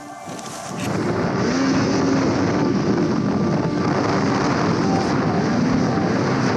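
Snowmobile engine running hard as the sled ploughs through deep powder, its revs rising and falling; it comes in loudly about a second in.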